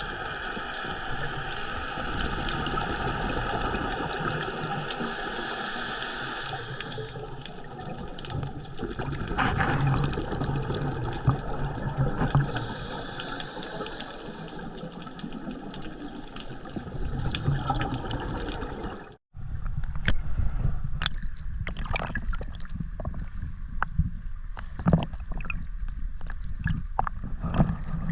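Water gurgling and bubbling, heard through a diver's camera on a scuba dive, with a high hiss twice in the first part. It cuts off abruptly about two-thirds of the way through, and a stretch of sharp clicks over a low rumble follows.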